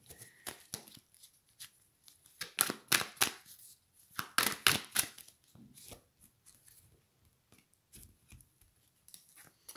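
A deck of large oracle cards being shuffled by hand, overhand style: irregular bursts of quick card slaps and rustles, thickest in the middle and thinning out to a few soft taps near the end.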